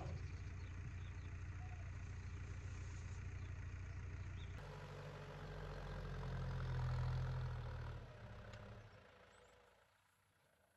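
A vehicle engine running with a steady low hum. About four and a half seconds in the sound changes abruptly, then the engine grows louder to a peak around seven seconds and fades away by about ten seconds.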